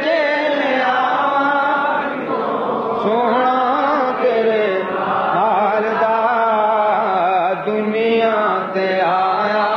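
A male naat reciter singing long, wavering, drawn-out notes with no clear words.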